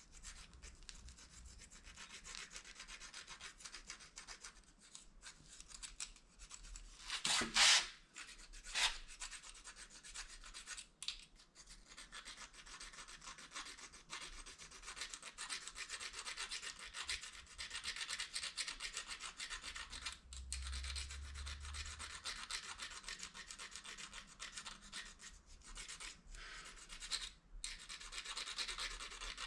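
Plastic fork scraping steadily against the edge of a plastic spoon, a continuous scratchy rasping with short breaks between strokes. A louder sharp clack about seven and a half seconds in, and a smaller one about a second later.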